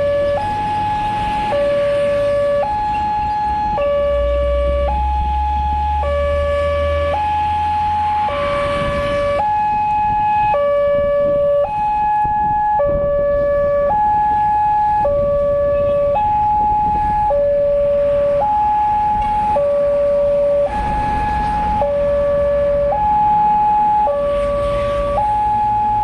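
Indonesian railway level-crossing warning alarm sounding from a pole-mounted horn loudspeaker: an electronic two-tone signal, a higher tone and a lower tone taking turns about once a second each, steady and repeating. It is the crossing's warning cycle, with the lamp flashing red and the barrier down while a train is due.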